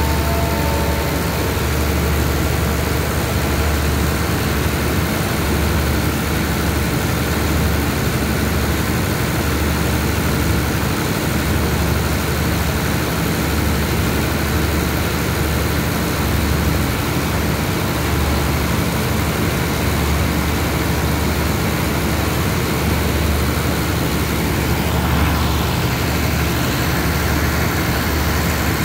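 Diesel engine of a stationary passenger train idling, a steady low hum with no change in pitch.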